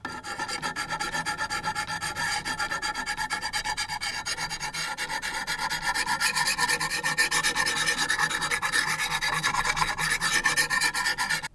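Coarse 100-grit Wicked Edge diamond stone rasping back and forth along the rusty steel edge of an old sickle, in rapid even strokes about four a second. It is grinding a first bevel onto a blade that had no edge at all.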